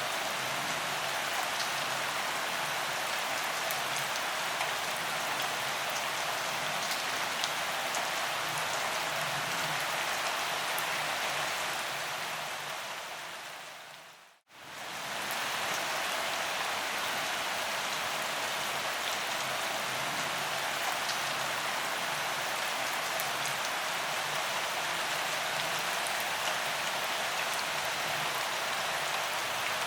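Steady rain falling, an even hiss with scattered drop ticks. About halfway through it fades out to silence and quickly fades back in.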